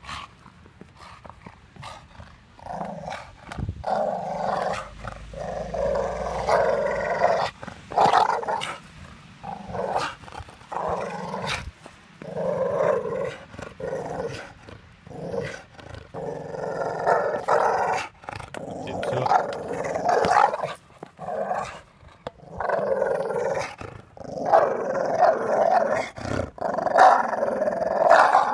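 Staffordshire bull terrier play-growling while biting and tugging at a rubber tyre, in bouts of a second or two with short breaks, starting about three seconds in. A few sharp knocks come between the growls.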